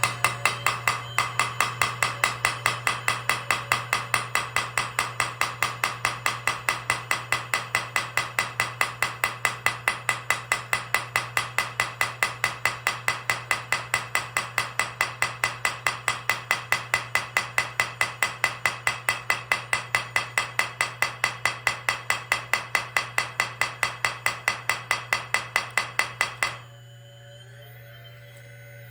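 Lesu scale-model hydraulic jackhammer pounding on a thin flat rock at about three strikes a second, over a steady low hum. The operator finds it is not getting through the rock as well as he expected. The hammering stops suddenly near the end.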